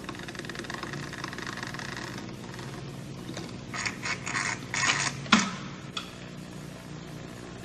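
Kinetic sculpture's mechanism moving over a steady low hum, with a burst of clattering clicks about four to five seconds in as its rows of slats fold shut over the central sphere, ending in one sharp knock.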